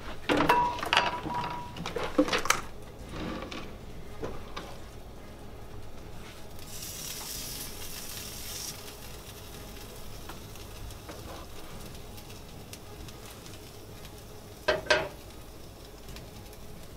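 Pork and ham sizzling in pans on a stovetop, the sizzle louder for a couple of seconds midway. Pans and utensils clatter several times in the first few seconds, and there is a single knock near the end.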